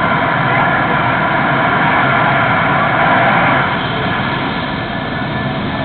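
Air ambulance helicopter running on the ground: a steady turbine whine over rotor and engine noise, easing slightly after about three and a half seconds.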